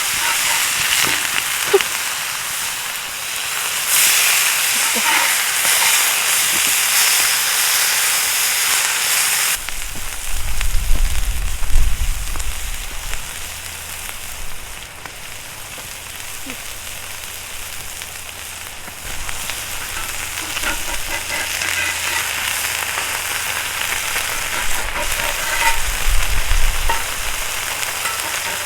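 Food sizzling as it fries in a pan, with small crackles. About a third of the way in it cuts to a quieter stretch with some low rumbling, and the sizzling builds again later.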